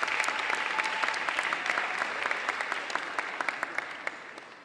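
Audience applauding, many hands clapping at once, fading out toward the end.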